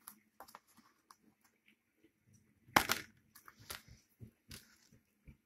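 DVD box-set packaging and plastic cases being handled: scattered crinkles and clicks, with a sharper clack about three seconds in.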